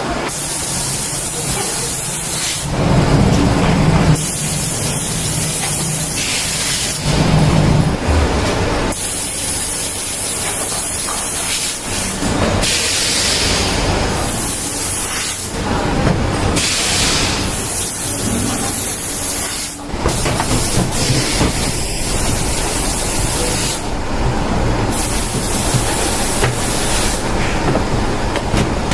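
Loud, steady hissing noise of workshop machinery, changing abruptly every few seconds.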